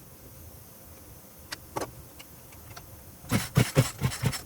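Poulan Pro 42 cc two-stroke chainsaw pull-started: a few light clicks, then near the end a quick run of compression puffs as the cord is yanked, and the engine does not fire. It turns over with about 120 of compression but will not start.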